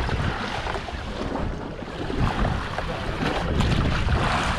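Wind buffeting the microphone on a boat at sea, with water splashing and lapping against the hull.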